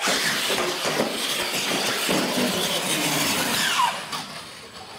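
Radio-controlled monster trucks racing down a straight track: small electric motors and gearboxes whining at full throttle, with tyre and chassis clatter. It falls away about four seconds in.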